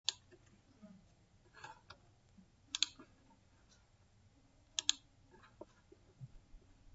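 Faint computer mouse clicks: a single click at the start, two quick double-clicks about three and five seconds in, and a few softer clicks between.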